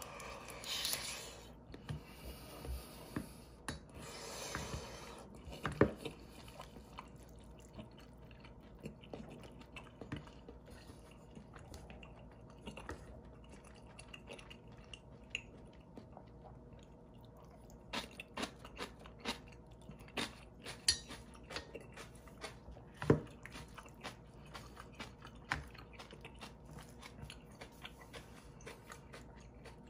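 Close-miked eating of instant ramen with dumplings and egg: a couple of longer slurps in the first few seconds, then steady chewing with many small wet mouth clicks. A few sharper knocks of the metal spoon against the bowl stand out, two of them loud.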